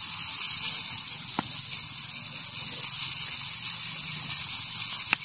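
Melted tree sap (tugop, breadfruit and jackfruit latex) cooking into bird lime in a small pot over a wood fire, with a steady sizzling hiss as it is stirred with a stick. Two sharp crackles sound, one about a second in and one near the end.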